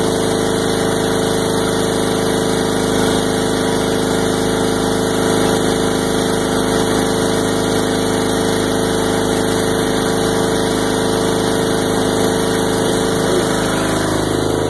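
An engine running steadily at a constant speed, with an even hum that shifts slightly in pitch near the end.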